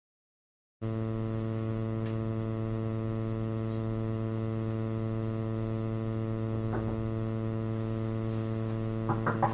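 Electrical mains hum on the recording, a steady buzz with many overtones, starting abruptly about a second in. A few faint soft knocks near the end.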